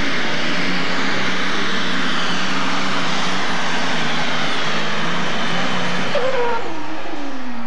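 International super stock pulling tractor's engine running flat out under full load as it drags a weight-transfer sled. About six seconds in, the throttle comes off at the end of the pull and a whine falls steadily in pitch as the engine winds down.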